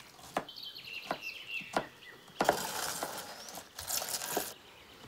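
Birds chirping, with a few sharp clicks. About two and a half seconds in comes roughly two seconds of dense crackling noise at the mouth of the reed-fired clay oven.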